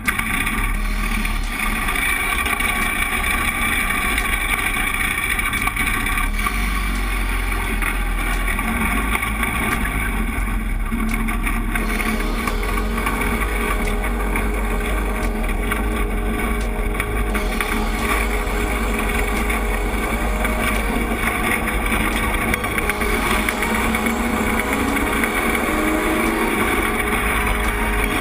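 Go-kart engine running as the kart is driven, heard from a camera mounted on the kart, with wind buffeting the microphone. The engine note rises and falls in the later part as the throttle changes.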